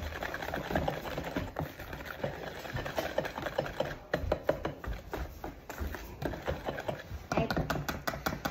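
Wire whisk stirring thick cake batter in a mixing bowl: soft wet stirring with scattered clicks and taps of the whisk against the bowl, coming faster near the end.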